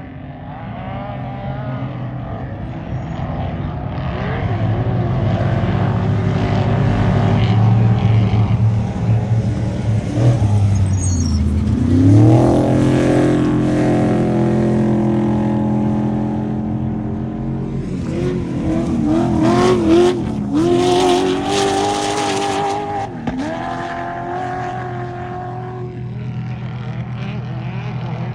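Off-road race truck engines running and revving hard, the pitch climbing sharply about twelve seconds in and swinging up and down again between about eighteen and twenty-three seconds.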